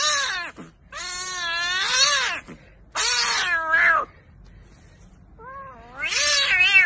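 Grey kitten meowing: a run of long, drawn-out meows, four in a row, each wavering in pitch, with the last one starting softly and swelling louder.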